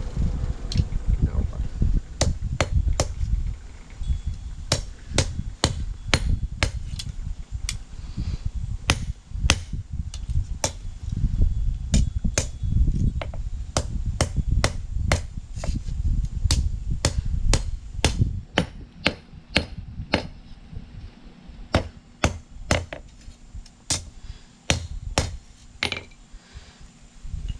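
Hammer blows on a steel hay rake tine on the anvil, thinning out the tip: a long run of sharp, ringing strikes at about one to two a second, with a few short pauses. A low rumble runs underneath.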